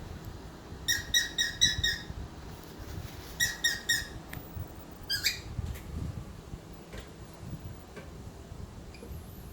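Cockatiel chirping in short, pitched, repeated notes: a quick run of about six, then a run of about four, then a single rising call about five seconds in.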